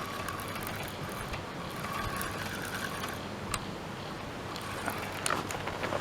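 Fishing reel being wound in while playing a hooked carp: two short runs of geared whirring, one at the start and one about two seconds in, with a few clicks, over a low wind rumble on the microphone.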